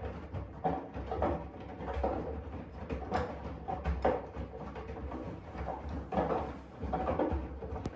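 AEG 7000 Series front-loading washing machine in its main wash: the drum turning with wet laundry tumbling and sloshing inside, over a steady low motor hum, with irregular soft thuds and swishes as the load drops.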